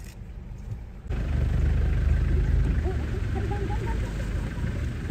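A vehicle engine running: a low rumble that comes in abruptly about a second in and holds fairly steady.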